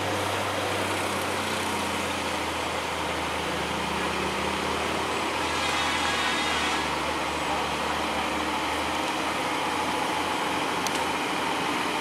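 Scania truck's diesel engine running steadily at low speed as it hauls a loaded trailer slowly round a bend, with a motor scooter passing close and other traffic behind.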